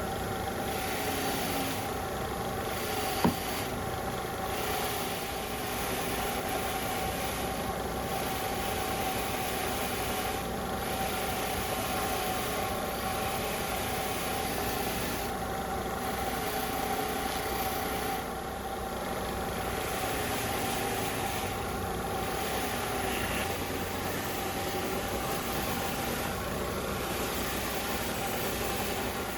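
A small electric motor, such as a power tool's, running steadily with a constant hum, as rust is cleaned off the metal. There is one sharp click about three seconds in.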